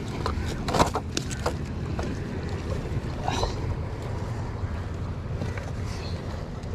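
Steady low drone of a boat engine running, with a few sharp clicks or knocks about a second in.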